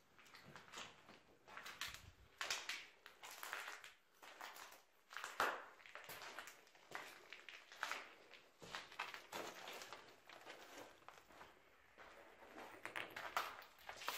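Footsteps crunching unevenly over rubble, broken boards and debris on a floor, with one sharper knock about five seconds in.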